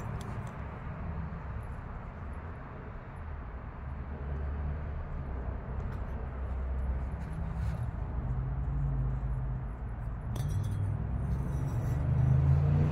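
Low, steady engine rumble of a motor vehicle, growing louder toward the end, with faint metallic clinks about ten seconds in.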